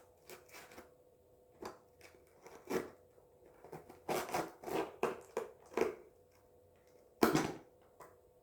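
A parcel's packaging being pierced with a pin and torn open by hand: irregular crinkling and ripping, busiest in the middle, with one loudest rip near the end, over a faint steady hum.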